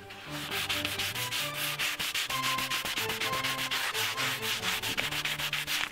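220-grit sandpaper rubbed by hand along a wooden canoe paddle shaft in quick back-and-forth strokes, several a second. It is scuffing up a worn spot so the urethane will have something to adhere to. Soft background music runs faintly underneath.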